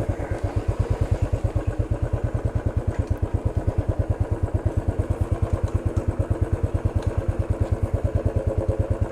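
Royal Enfield Classic 350 Stealth Black's single-cylinder four-stroke engine idling through its exhaust, a steady, even thump of about eight beats a second with no revving.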